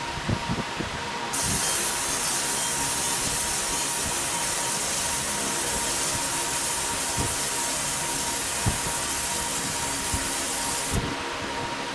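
70 W SPI fiber laser marking machine deep-engraving copper: a steady high hiss of the beam ablating the metal switches on about a second in and cuts off near the end, over a constant thin whine, with a few faint knocks.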